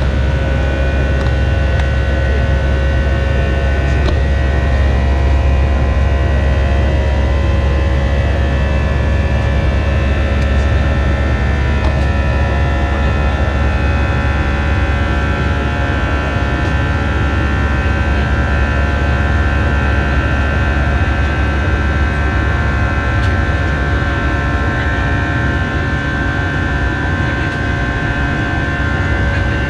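Airbus A319 cabin noise in the climb after take-off: steady jet-engine and airflow drone heard from inside the cabin, a deep rumble with a few steady whining tones above it.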